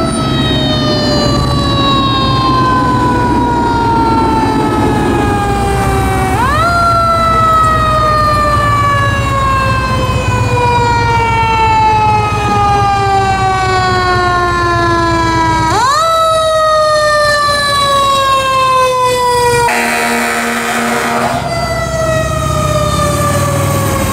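2015 Spartan ER Metro Star fire engine's mechanical siren wailing. It winds up sharply twice and slowly coasts down in pitch after each, over the low run of the truck's engine. A horn blast of about a second and a half comes about twenty seconds in.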